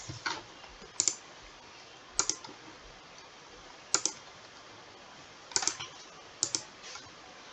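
Sharp clicks at a computer, most likely the mouse: single clicks about a second in, at two seconds and at four seconds, then small clusters of two or three clicks near the end.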